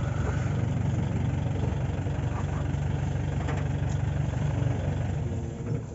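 Vehicle engine idling with a steady low hum, fading away near the end.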